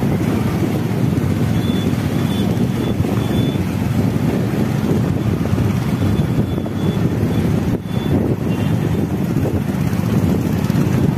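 Steady rush of wind buffeting the microphone on a moving motorcycle, over the noise of the bike running along the road.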